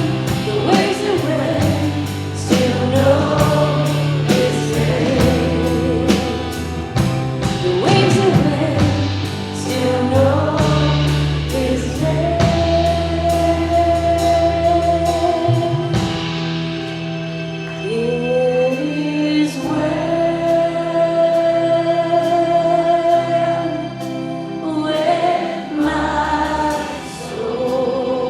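Live church worship band playing with singers, voices carrying a melody over bass and keys. Drums keep a steady beat through the first half, then drop out, leaving held chords and voices.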